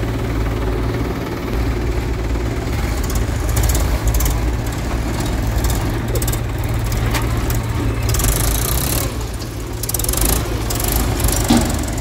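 Heavy diesel machinery running steadily at a low drone, with irregular rattling and hiss over it from about three seconds in.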